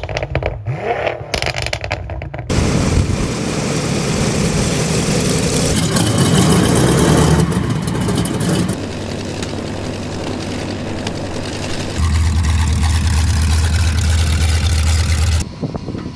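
A brief intro sound gives way, about two and a half seconds in, to a quick succession of loud WWII-era piston propeller aircraft engines running, cut together every few seconds. One segment, from about twelve to fifteen seconds, carries a strong steady low drone. Near the end it cuts to a quieter running engine.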